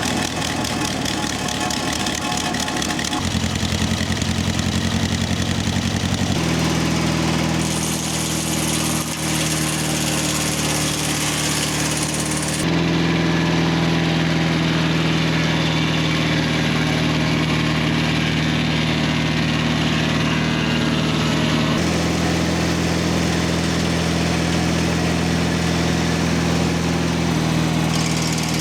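Engine of a Mobile Dimension circle sawmill running steadily. Its pitch steps up a few seconds in and again at about six seconds, then holds.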